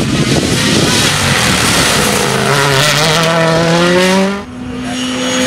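Rally car passing at speed under full throttle: a loud rush of noise, then the engine note climbing steadily through the revs for about two seconds. The note cuts off sharply about four seconds in, then comes back as a steady, higher tone.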